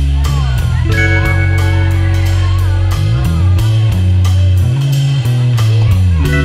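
Background music with a steady drum beat over sustained bass and held instrumental notes.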